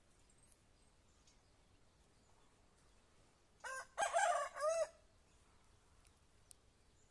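A rooster crowing once, a little past halfway through, for just over a second, ending on a falling note.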